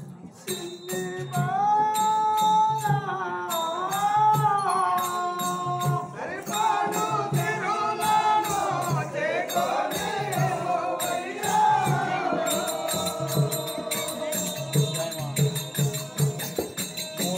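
Live folk-theatre music: a voice singing a long, sliding, ornamented melody that starts about a second in, over a steady drum beat and sharp percussion strokes.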